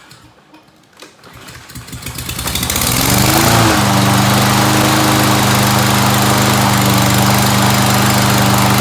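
Small lawn mower engine catching and revving up over about a second, then running steadily at full speed. It now runs after its clogged carburetor jet was cleaned.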